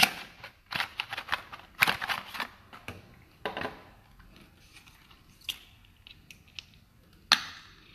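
Scattered clicks, taps and short rustles of a plastic cream tube being handled, with one sharp click near the end.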